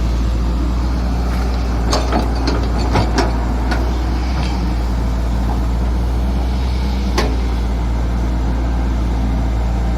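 Excavator engine running steadily under work, with a cluster of sharp clanks about two to four seconds in and one more about seven seconds in.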